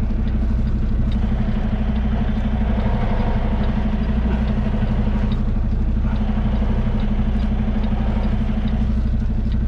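Semi truck's diesel engine running steadily near idle, heard from inside the cab while the tractor-trailer creeps backward toward a loading dock.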